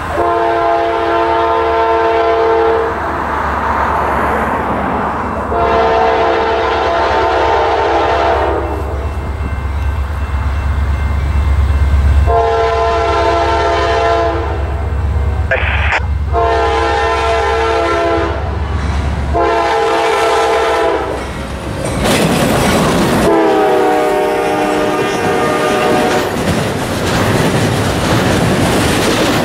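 Norfolk Southern diesel freight locomotive blowing its air horn in a series of long blasts, with a short one just before the last, over the deep rumble of its engine drawing closer. The last blast drops in pitch as the locomotive passes, and then the cars of a double-stack intermodal train roll by.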